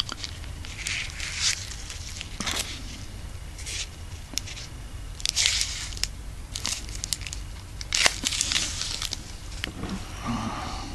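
Clear plastic wrapping on a pack of firecrackers crinkling as it is handled, in irregular short bursts.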